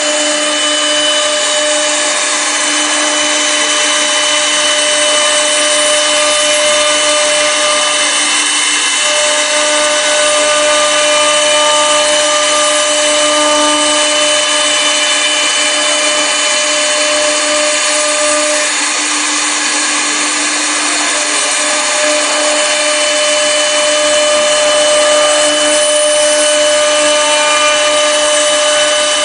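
Double-knife CNC wood lathe turning a wooden spindle while its air-cooled engraving spindle cuts a spiral twist into it: a steady machine whine with several held tones over rough wood-cutting noise.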